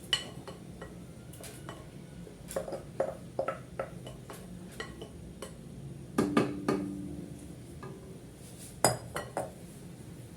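Utensils clinking and knocking against a cooking pot as soaked barley grits are put into it: scattered light knocks, a ringing clang about six seconds in, and a few sharp knocks near the end.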